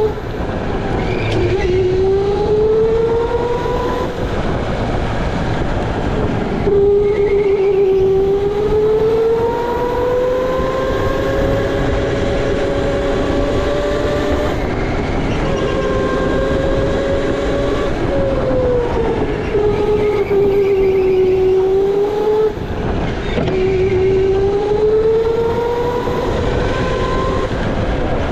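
Electric go-kart motor whining at speed, its pitch climbing slowly as the kart accelerates and dropping quickly as it slows for the corners, several times over, over a rough rumble from the kart's tyres and chassis.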